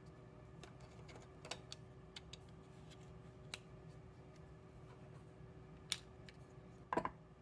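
Scattered small clicks and taps from handling small parts and tools during bench repair work on an electronic readout, with a louder knock about seven seconds in, over a faint steady hum.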